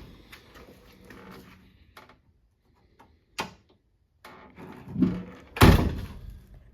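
1966 Ford Mustang door being worked with its newly fitted handle: a sharp latch click about three and a half seconds in, then the door shut with a loud thunk near the end. The striker is still out of line, so the door does not yet shut well.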